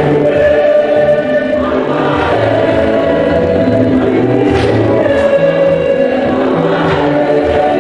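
Church choir singing a hymn to the Virgin Mary, many voices in sustained harmony.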